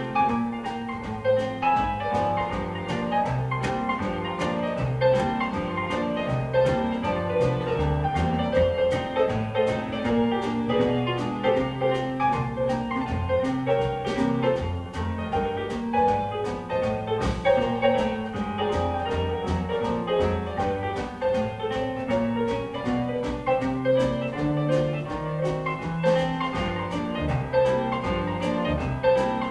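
Small Dixieland jazz band playing live. Double bass and drum kit keep a steady beat under the other instruments.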